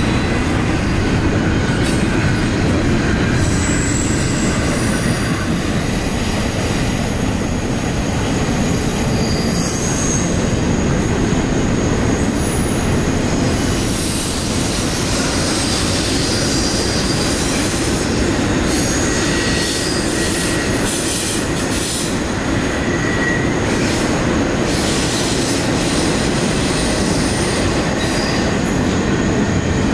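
CSX freight train's cars rolling past, a steady loud rumble with steel wheels squealing on the rail off and on in high thin tones.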